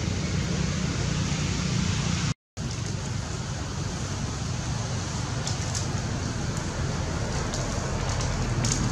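Steady noisy hiss of outdoor background ambience, like wind on the microphone. It drops out to silence for a moment about two and a half seconds in, and a few faint clicks follow later.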